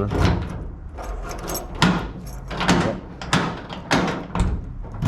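Keys tried one after another in a freshly rebuilt wafer-type door lock on a 1978 Chevrolet C10: a series of sharp clicks and metallic clunks as the key goes in, the lock cylinder turns and the door latch works. The new keys still turn a little rough in the lock.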